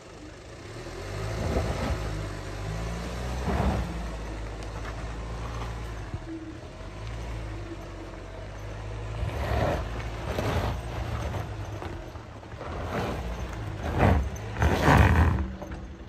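Off-road vehicle's engine labouring up a steep slope, revving in repeated surges, with the hardest surges near the end.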